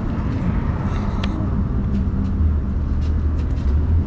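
Low steady rumble of road traffic, with an engine hum that grows stronger about halfway through, and a few faint clicks.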